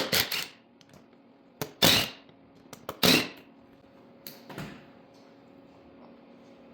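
Short, sharp work noises, four or five in about five seconds, from tools and parts handled while a small two-piece ATV wheel is taken apart to get the tyre off, over a faint steady hum.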